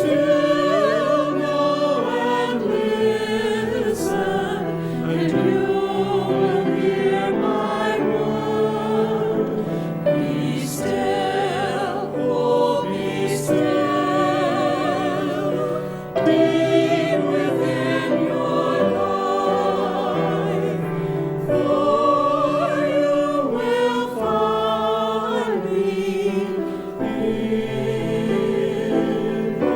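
Church choir singing an anthem with music, the voices held on long notes with vibrato.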